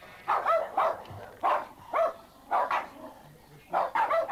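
Small Jack Russell-type terriers barking, about ten sharp barks in quick pairs and clusters.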